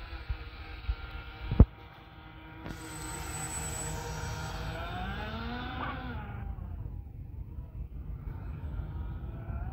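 RC jet boat's twin brushless outrunner motors driving water jets, whining with several stacked tones that rise and then fall in pitch about five to six seconds in, over a steady low rumble. A single sharp click about a second and a half in.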